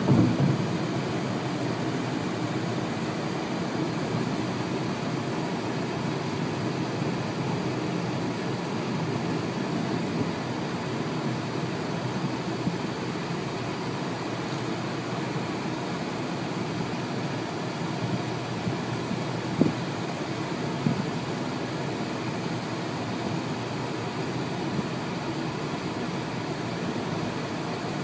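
Steady road and engine noise inside a car driving on a freeway, with a couple of brief knocks about two-thirds of the way through.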